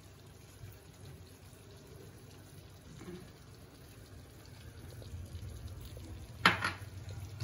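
Quiet kitchen with a faint low hum that grows slightly louder toward the end, and one sharp knock about six and a half seconds in.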